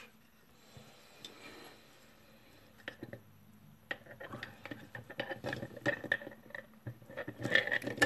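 Light metallic clicks and knocks of a brass lock cylinder being handled, fitted into and clamped in a small metal screw vise. The clicks begin about three seconds in and come thicker in the second half.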